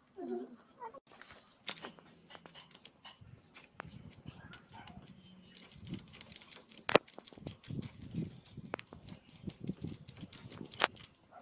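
Irregular metallic clicks and clinks of a hand wrench, which looks like a ratchet, working the bolts on an air-cooled motorcycle cylinder head. One sharp clink about seven seconds in.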